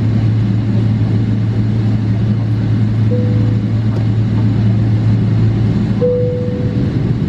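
Steady low drone of a Boeing 777-300ER's cabin, with a constant hum from the aircraft's engines and systems. Two short faint tones sound about three and six seconds in.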